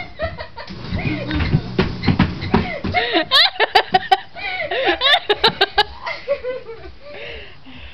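People laughing hard after a treadmill fall, with a stretch of rapid, high-pitched bursts of laughter around the middle.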